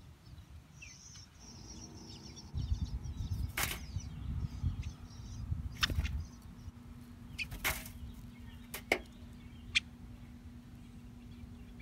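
An eastern bluebird coming onto a metal feeding tray: about five sharp taps and wing flutters, spaced a second or two apart. A low rumble runs under the middle of it.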